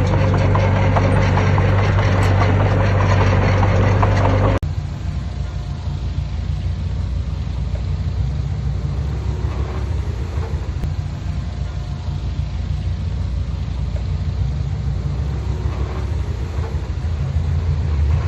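Heavy construction machine's diesel engine running with a strong steady low hum, which cuts off abruptly about four and a half seconds in to a quieter, rougher engine sound.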